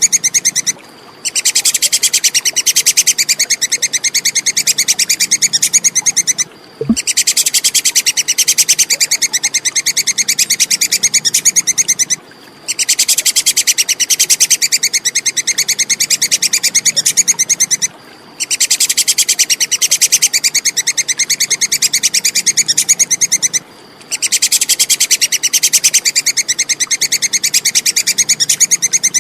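Tupai kekes (squirrel) alarm chatter, a rapid, sharp, high-pitched 'kek-kek-kek' run in bouts of about five seconds with short breaks between them, the same bout repeating as a looped recording. A brief low thump sounds once about seven seconds in.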